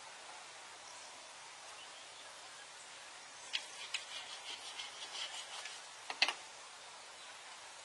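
Faint, steady outdoor background hiss. About halfway through comes a run of light clicks and short high chirps, then two sharp knocks near the end.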